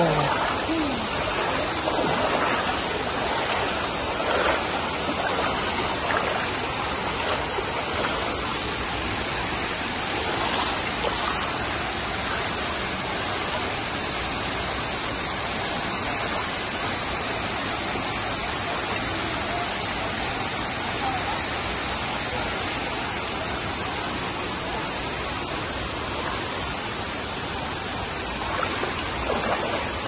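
Steady rush of a waterfall's falling water, with faint voices in the first moments and again near the end.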